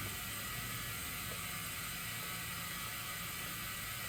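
Compressed air hissing steadily from a Porter-Cable 30-gallon compressor's tank through the hose and inflator chuck into a car tire, with the compressor's pump motor not running.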